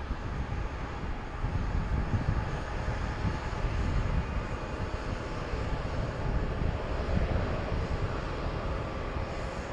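Boeing 737 jet engines at takeoff thrust, heard as a steady, low, heavy rumble as the airliner rolls down the runway and lifts off.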